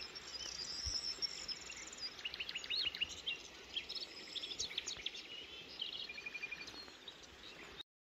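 Several songbirds singing and chirping, with quick high notes and a short trill, over faint steady background noise. The sound cuts off abruptly near the end.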